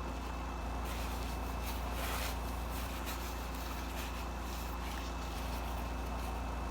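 Steady low hum, with a few faint, short soft noises over it.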